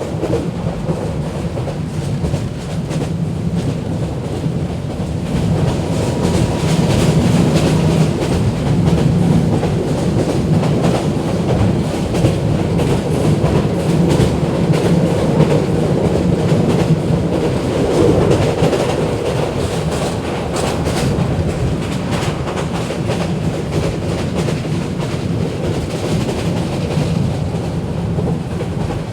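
Bangladeshi local passenger train running, with a steady rumble and the rhythmic clatter of its wheels over the rail joints, a little louder through the middle stretch.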